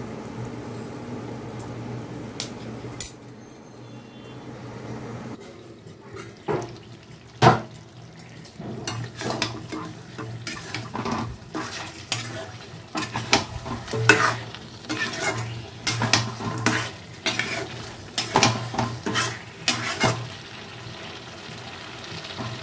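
A spatula stirring and scraping chicken masala in a pan over a low sizzle of frying, with the masala at the stage where the oil is separating. Irregular metal-on-metal scrapes and knocks start about a quarter of the way in.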